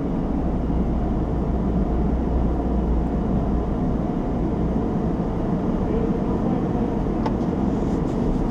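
Steady low rumble inside the cab of a 2016 Ford F-150 with its engine idling, left running because the driver's seatbelt is off, which keeps the stop/start system from shutting it down. A single light click about seven seconds in.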